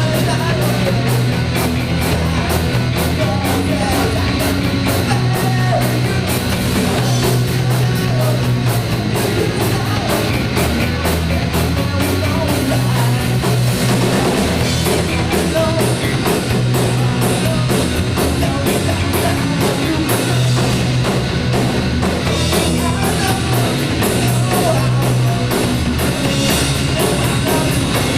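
Rock band playing live, with drum kit, guitar and bass, and singing over it.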